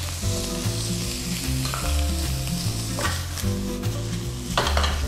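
Freshly added raw diced chicken sizzling in oil with onion, leek and egg in a hot stone-coated non-stick frying pan over high heat. It is stirred with a silicone spatula, which scrapes the pan about three seconds in and again about a second and a half later.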